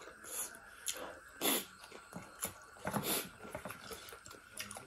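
Close-miked mukbang mouth sounds: a man chewing and lip-smacking as he eats duck curry and a cucumber slice by hand. Many small wet clicks, with two louder bursts about a second and a half and three seconds in.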